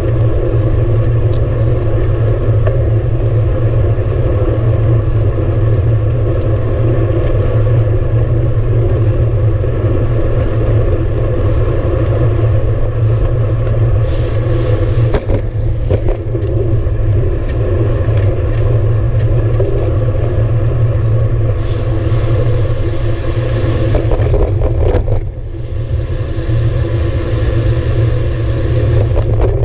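Steady low wind rumble and tyre noise from a road bike rolling along a paved path, picked up by a camera on the handlebars. A couple of sharp clicks come about halfway through.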